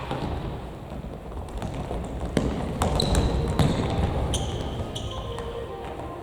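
Futsal ball kicked and bouncing on a gymnasium floor, with a few sharp kicks a couple of seconds in, amid shoes squeaking on the court and echoing hall noise from a game in play.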